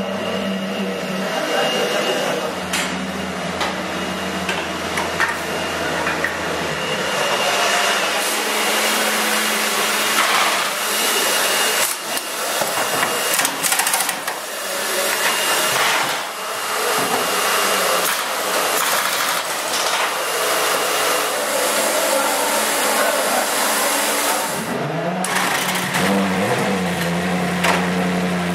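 Race pit garage noise: a steady whirring, machine-like din with knocks and clatter. About three seconds from the end, a pitched sound rises and wavers.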